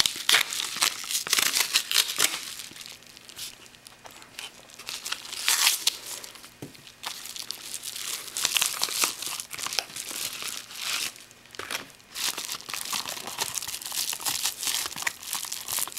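A bubble-wrap-lined padded mailer being torn open and handled: irregular crinkling and tearing of paper and plastic, coming in bunches with short lulls.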